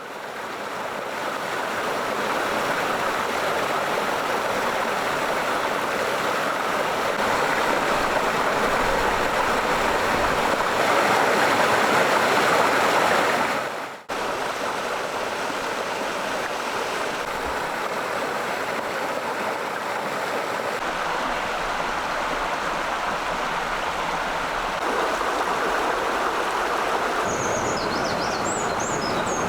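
Steady rush of running water, breaking off for an instant about halfway and then resuming. A few short, high bird chirps near the end.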